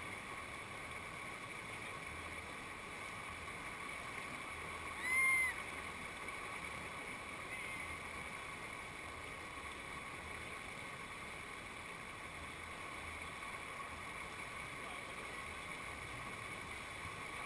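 Steady rush of river whitewater pouring over a ledge into a standing wave, with one brief high call rising and falling in pitch about five seconds in.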